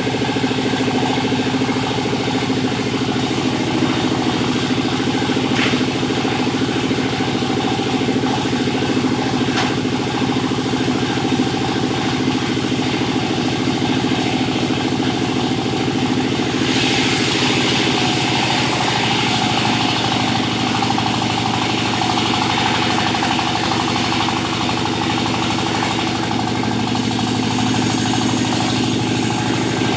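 Sawmill running on a steady engine drone. Twice in the second half a louder hiss rises over it, a few seconds each time, as the saw cuts through jabon wood.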